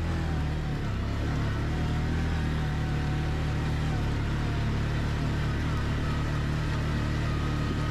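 Quad (ATV) engine running steadily at an even, low speed, with a faint higher whine over the engine note.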